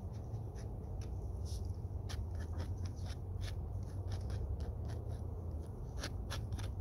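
Palette knife scraping and dabbing oil paint across a stretched canvas: a run of short, scratchy strokes that come thicker near the end, over a steady low rumble.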